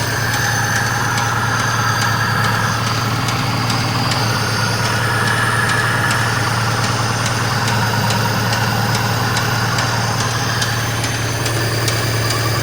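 VAZ-2101 inline-four engine idling steadily with a regular knock, which the owner traced to a worn piston pin.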